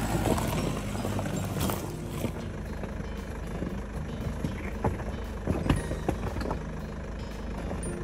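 SsangYong Rexton Sports pickup's diesel engine running low and steady as the truck crawls over loose rocks and gravel, with tyres crunching and stones knocking under it, a few sharper knocks past the middle.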